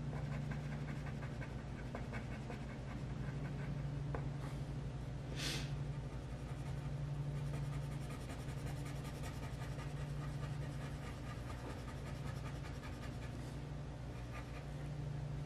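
Felt-tip marker scratching rapidly back and forth on paper while colouring in, with a steady low hum underneath. There is one brief, louder scrape about five seconds in.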